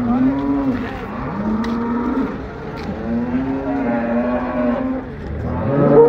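Cattle mooing: a run of long, low moos, each about a second, one after another, with a louder moo starting near the end.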